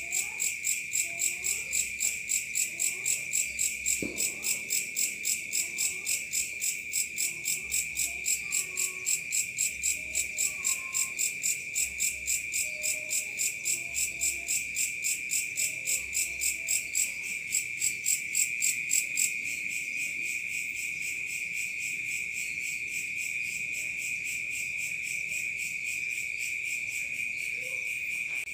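Night chorus of crickets: a steady high trill, with a louder pulsing chirp of about three pulses a second that stops about two-thirds of the way through. Faint lower chirping calls and a single soft knock about four seconds in sit underneath.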